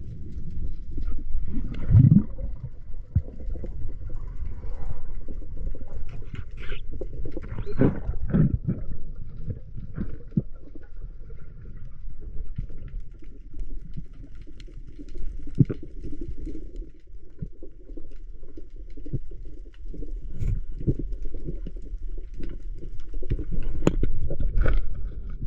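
Muffled underwater sound through a camera's waterproof housing: a low rumble of water movement with scattered clicks and knocks.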